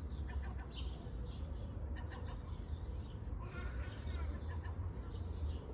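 Pet parrot chirping and whistling in many short calls, a few of them gliding up and down in pitch, over a low steady hum.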